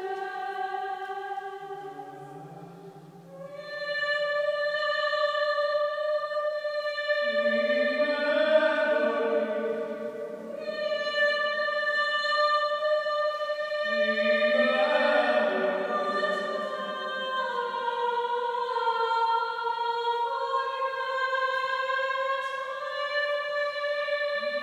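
Classical, operatic-style singing with long held notes, a higher voice and at times a lower voice sounding together.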